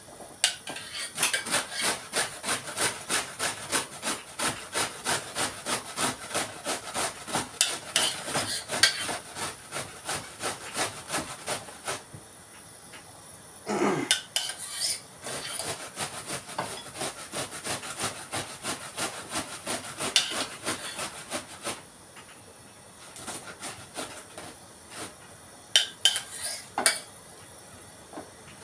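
Red cabbage being shredded on a hand grater: quick, even rasping strokes, about two to three a second, pausing briefly twice. A short falling squeak about halfway through and a few sharp metal clinks near the end.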